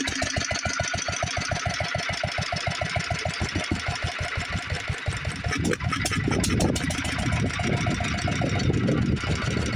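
International Harvester 3-5 hp LA single-cylinder engine running steadily and driving lineshaft machinery, a fast, even beat. About halfway through, a louder, rougher rumbling clatter joins in over the beat.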